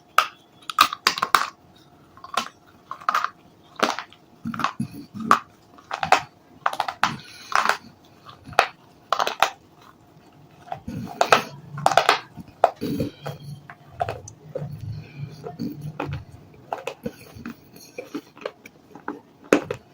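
Brittle baked clay (kulhad cups and diyas coated in dry paste) crunching and cracking as it is crushed, in a string of sharp, irregular crunches about once or twice a second.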